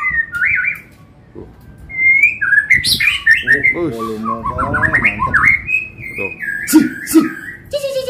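Black-tailed white-rumped shama (murai batu ekor hitam) singing loudly in varied whistled phrases with gliding, slurred notes. It breaks off for about a second near the start and then sings on without pause. It is a freshly arrived bird singing freely without any settling-in period. Two sharp knocks come near the end.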